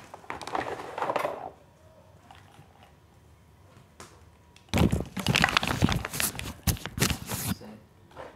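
Rustling and crackling of packaging being handled: plastic wrap and cardboard inside an unboxing carton. There is a short stretch of rustling at first, then a quiet pause, then a loud, dense run of crackles and knocks about halfway through that lasts roughly three seconds.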